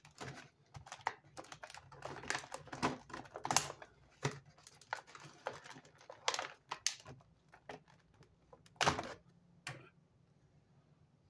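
Plastic packaging tray and elastic ties clicking, rustling and snapping in irregular taps as an action figure is worked free of its blister tray. Two sharper snaps stand out, about three and a half and nine seconds in, and the handling dies down near the end.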